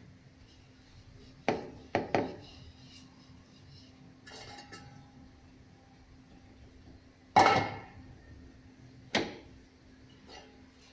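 A wooden rolling pin knocking against a wooden rolling board and a steel bowl while a paratha is rolled out: a few sharp knocks, two close together about two seconds in and the loudest about seven seconds in, with a short soft rustle between them.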